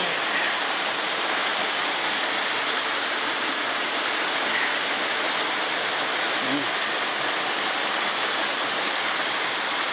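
Steady rushing of rain-swollen creek water pouring over rocks after a heavy downpour.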